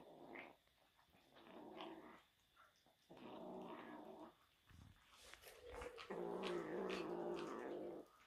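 Devon Rex kitten growling over raw meat, three low drawn-out growls with the longest and loudest near the end: a possessive food growl while eating.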